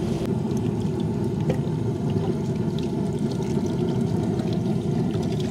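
Water poured from a plastic bottle into a large aluminium cooking pot of raw onions, spices and mutton tripe, splashing onto the ingredients, over a steady low rumble.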